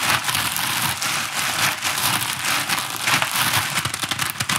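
Clear plastic bag wrapped around a rifle crinkling as hands squeeze and rub it: a dense, unbroken crackle of plastic.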